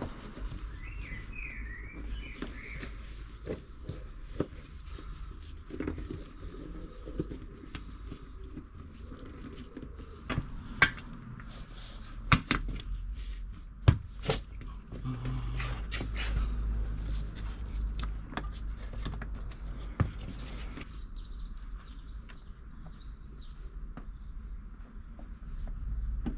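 Tyre levers and a motorcycle wheel rim being handled while a tyre is worked onto the wheel: scattered sharp metallic knocks and clicks, several of them loud. Birds chirp in the background near the start and again near the end.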